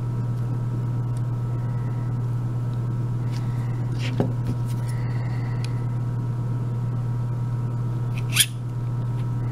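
Small metal clicks from a brass euro lock cylinder being worked by hand, with one sharp click about four seconds in and a louder, sharp metallic click-scrape near the end as the plug is pushed out of the housing with a metal plug follower. A steady low hum runs underneath.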